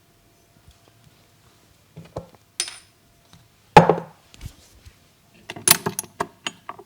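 Sharp slaps and taps of a masseur's hands striking the head in an Indian head massage, coming irregularly: a few light hits, one loud hit about four seconds in, then a quick run of hits near the end.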